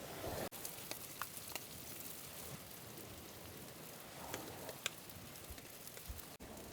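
Rain falling steadily, an even hiss with scattered sharp drop ticks. The sound cuts out for an instant twice, once about half a second in and once near the end.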